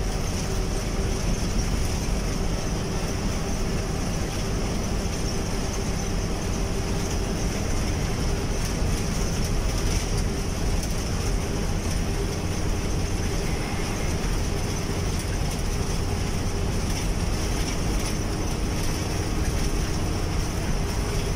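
Intercity bus on the move, heard from inside its cabin: a steady engine drone mixed with tyre and road noise, unchanging throughout.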